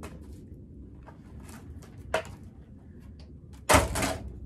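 Plastic packaging being handled: light rustles and small clicks, a sharp click about two seconds in, and a louder half-second rustle and clatter of plastic near the end.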